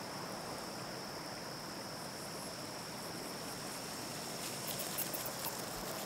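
Crickets chirring in one steady high drone over an even hiss, a night-time nature ambience. A few faint, sharp high clicks come in over the second half.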